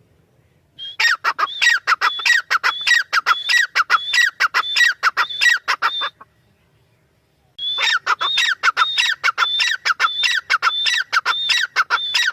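Female teetar (francolin) calling: two long bouts of fast, repeated squawking notes, about four or five a second. The first bout starts about a second in and stops around the middle; the second starts after a pause of about a second and a half and runs on.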